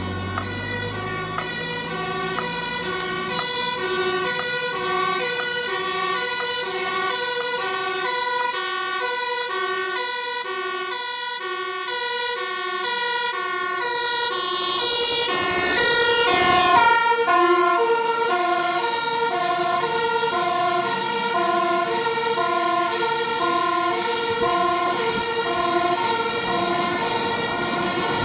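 Fire engine's two-tone siren sounding continuously, alternating between a high and a low note. It grows louder as the truck approaches, is loudest as it passes about 17 seconds in, and drops slightly in pitch as it drives away.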